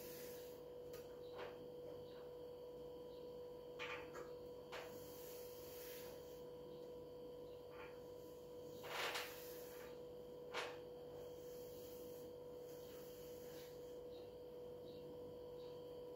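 Faint handling sounds from a stopped ceiling fan being wiped by hand: a few soft knocks and rubs, the loudest a short cluster about nine seconds in and a knock a second and a half later. Under them runs a steady electrical hum.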